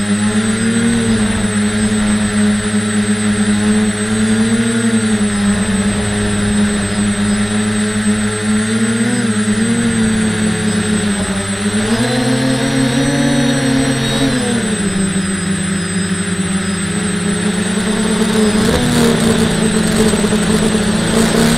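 A model aircraft's motor and propeller heard from an onboard camera, a steady droning buzz whose pitch rises about twelve seconds in, drops back a couple of seconds later, and climbs again near the end with more rushing air. The uploader says the propellers are poorly balanced, giving rough flight.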